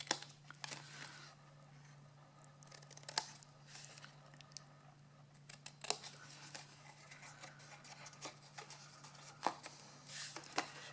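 Small scissors snipping cardstock, trimming a box template's flaps at an angle: a few short, separate snips several seconds apart, over a faint steady hum.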